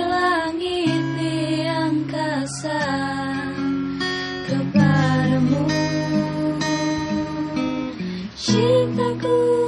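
A voice singing a song to acoustic guitar accompaniment, with long held notes that waver in pitch.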